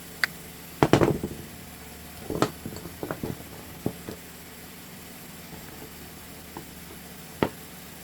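Plastic cross-stitch (Q-snap) frame pieces being handled and pushed together: a quick cluster of light clicks and knocks about a second in, a few scattered taps over the next seconds, and one sharper click near the end, over a faint steady hiss.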